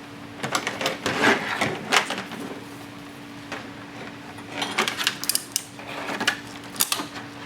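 Hands working bilge wires into butt connectors: scattered small clicks, taps and rattles in two clusters, about half a second in and again around five seconds in, over a faint steady hum.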